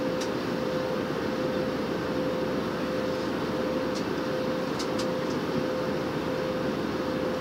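Airliner passenger cabin at cruise altitude: a steady rushing drone of jet engines and airflow, with a constant hum held through it. A few faint light ticks come about four to five seconds in.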